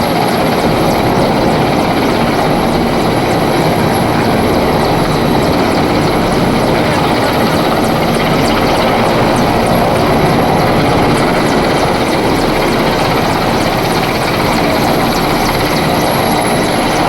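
Helicopter rotor and engine running, a loud steady noise without a break.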